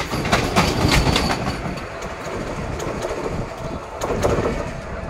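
Vande Bharat Express electric train set passing close by, its wheels clicking rhythmically over the rail joints over a low rumble. The clatter fades after about two seconds.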